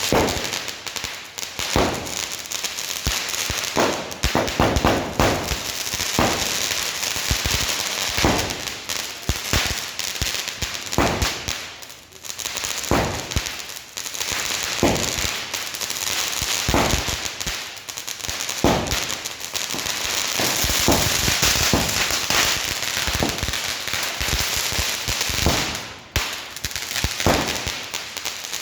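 NPK Crackers 'Whats Up' 50-shot firework cake firing: launch pops one after another over a continuous sizzling crackle.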